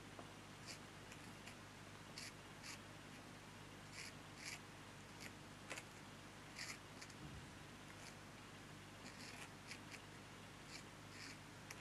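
Faint, irregular short scratches and ticks of a small hand tool working on paper or card during glitter crafting, roughly one or two strokes a second over a low background hiss.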